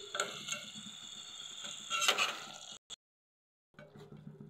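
Metal spatula stirring chicken feet in a thick masala gravy in an aluminium pot, clinking and scraping against the pot over a faint steady sizzle. A few sharp clinks come through, the loudest cluster about halfway in. The sound drops out completely for about a second just before the three-second mark, then returns.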